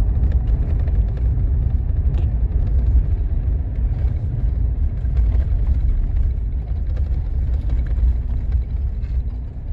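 Steady low rumble inside a GMC pickup's cab as it drives slowly over a dirt field track: engine and tyre noise, with faint rattles and ticks.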